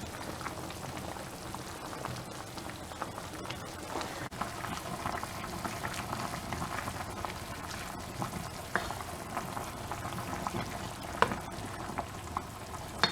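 A full pot of pork soup with vegetables boiling, a steady bubbling with small pops and a couple of light clicks.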